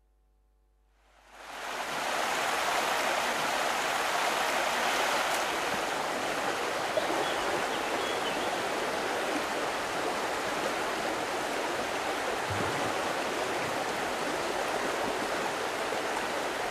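Running water of a small stream, a steady rush that fades in about a second in.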